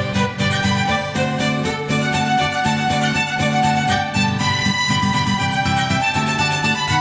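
Instrumental background music with violin over a steady plucked beat.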